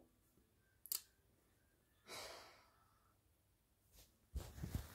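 A man's quiet sigh, a soft exhale about two seconds in, with a short click about a second in. Low knocks and rustling near the end as his arms shift.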